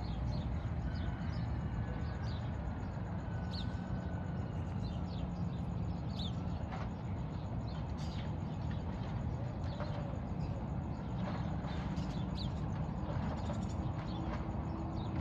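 Birds chirping in short, scattered calls over a steady low rumble of a vehicle engine.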